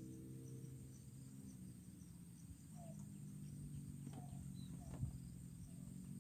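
Faint outdoor ambience: a steady low hum with a few faint chirps, and a single sharp click about five seconds in.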